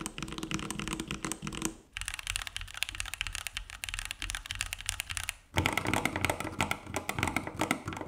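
Fast typing on 65% mechanical keyboards in a side-by-side sound test, one keyboard's recording cut straight to the next about two seconds in and again about five and a half seconds in. The keyboards compared are see-through plastic-case boards and the aluminium-case Keychron Q2. The middle take sounds thinner, with far less low thock than the takes either side of it.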